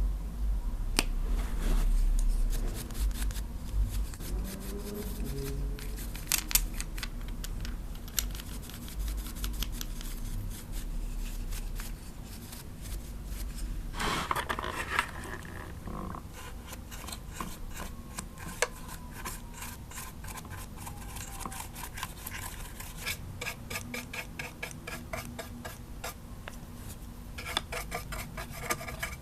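Bristle brushes sweeping over the hard plastic of a Lemax Spooky Town animatronic decoration, with quick scratchy, ticking strokes. About halfway through there is a louder rustle as a small brush takes over from a large one.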